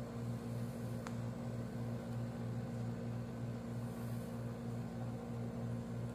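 Panasonic 1 HP window-type air conditioner running on cool, its compressor and fan motor humming steadily, with a low hum that pulses about three times a second and a faint click about a second in. Both now run after the failed dual run capacitor, which had left them only humming without starting, was replaced.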